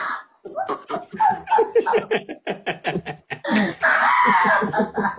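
Several men laughing hard in quick rhythmic bursts, rising to a louder, higher-pitched stretch of laughter about three and a half seconds in.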